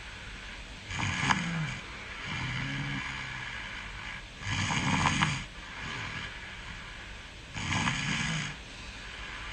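A person snoring in sleep: three loud snores about three seconds apart, with a softer breath between the first two, over a steady hiss.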